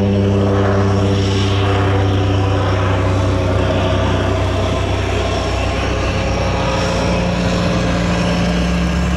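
DHC-2 Beaver with a RED A03 twin-turbo diesel V-12 flying overhead: a steady, loud propeller and engine drone. About six seconds in, its tone drops slightly in pitch as the plane moves away.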